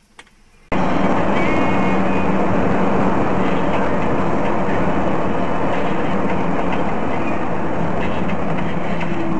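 Loud, steady running noise of a vehicle in motion, a dense rumble with a constant low hum, cutting in suddenly under a second in after a near-quiet start with one small click.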